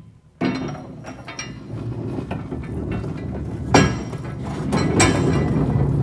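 Metal sliding subframe of a CargoGlide bed slide rattling and scraping as it slides along the base frame's track, with small clinks throughout and two loud clanks about four and five seconds in.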